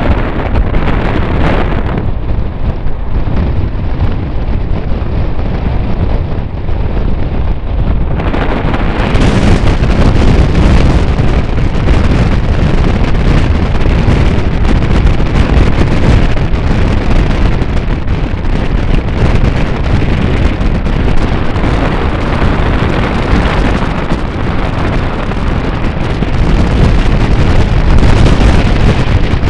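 A moving train heard from on board: a loud, steady rushing noise, heavy with wind buffeting the microphone, with no distinct wheel clicks.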